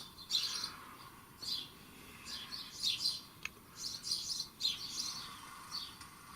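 Garden birdsong played back from a recording: a string of short, high chirps and twitters at irregular intervals.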